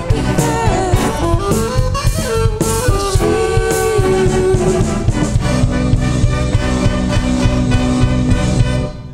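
Big band playing live: brass and singers over a drum kit, with held chords on a steady drum beat in the second half. The music stops sharply near the end.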